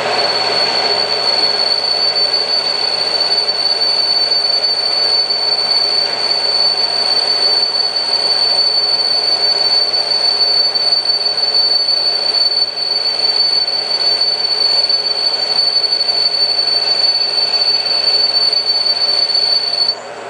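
CNC lathe taking a turning cut: a 55-degree turning tool with a broad-radius steel-grade insert cuts the spinning bar, giving one steady high-pitched squeal over the spindle and cutting noise. The squeal stops suddenly near the end as the cut finishes.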